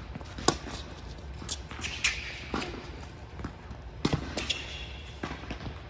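Tennis ball being struck by rackets and bouncing on a hard court during a rally, a string of sharp pops, the loudest about half a second in, in a large indoor hall, with shuffling footsteps.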